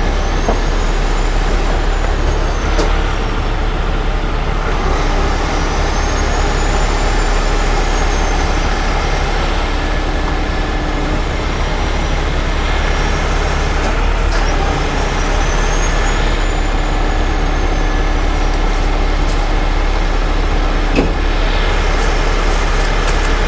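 Heavy rotator wrecker's diesel engine running steadily while its boom holds a suspended SUV, with a faint high whine that rises and falls three times.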